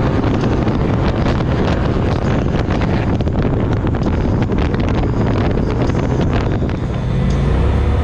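UTV driving along a rough track, its engine rumble mixed with heavy wind buffeting the microphone and short knocks from jolts over the ground.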